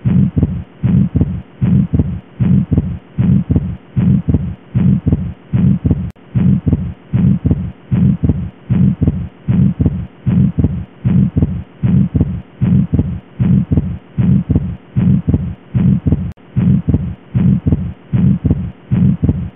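Heart sounds of an atrial septal defect, in a steady regular rhythm: each beat is the first heart sound (S1), then a systolic murmur, then a split second heart sound (S2) whose splitting stays fixed.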